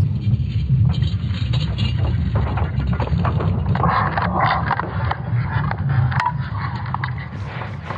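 Sonified recording of Earth's magnetic field: a deep, continuous rumble with creaking, scraping and crackling noise over it, busiest about halfway through.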